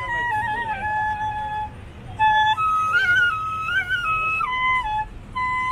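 Bamboo bansuri flute playing a slow melody of held notes with small ornamental turns, dropping away briefly about two seconds in before a higher phrase.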